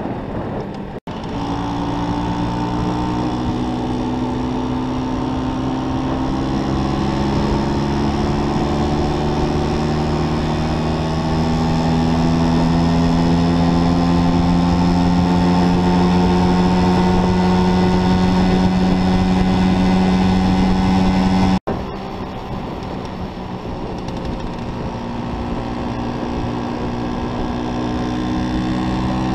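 Vespa scooter engine running under way, its pitch climbing slowly and steadily as the scooter gathers speed, with wind rushing over the microphone. The sound cuts out for an instant about a second in and again about three quarters of the way through, then comes back lower in pitch and climbs again.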